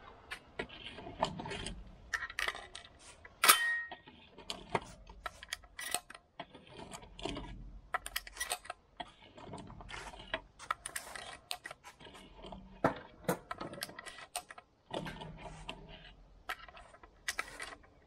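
Shotgun shells and gun metal being handled: irregular small clicks and rattles, with one sharper, louder click about three and a half seconds in.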